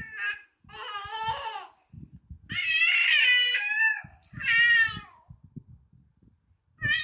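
Five-month-old baby cooing and babbling in a string of high-pitched vocal bursts, the longest about two and a half seconds in, with a short lull before one more near the end.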